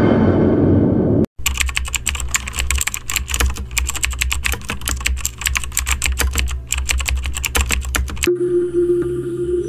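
Computer-keyboard typing sound effect: rapid, uneven key clicks over a steady low drone. About a second in, loud dark music cuts off abruptly before the typing begins. Near the end the typing stops and a steady humming tone sets in.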